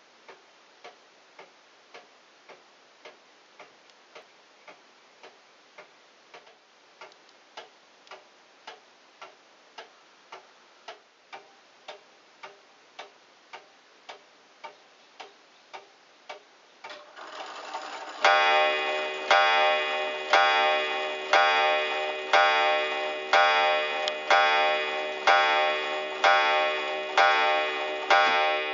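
Seth Thomas 30-hour weight-driven ogee clock movement ticking, a little over one tick a second. About 17 seconds in, the strike train whirs into motion and the hammer strikes the coiled wire gong eleven times for 11 o'clock, each blow ringing on into the next.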